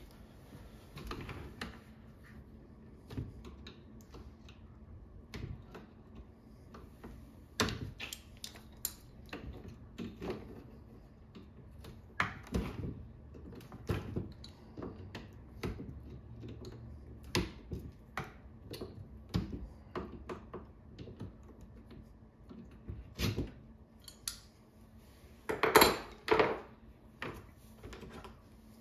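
Screwdriver and hands working on a folding chair's metal frame and plastic front hook: scattered, irregular clicks, taps and knocks of metal and plastic, with a louder clatter near the end.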